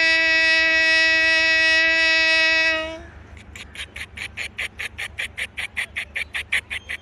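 A man's vocal mimicry of a train: a steady horn-like hoot held for about three seconds, then a fast even 'chuk-chuk' pulsing, about four or five a second, imitating the wheels.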